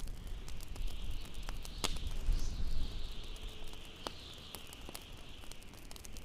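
Wood fire crackling, with scattered sharp pops, two louder ones about two and four seconds in, over a steady hiss and a low rumble.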